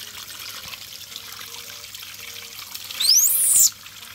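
Water from a garden hose pouring and splashing over a baby monkey onto wet concrete. About three seconds in, a brief, loud, shrill sound sweeps upward in pitch and stops after well under a second.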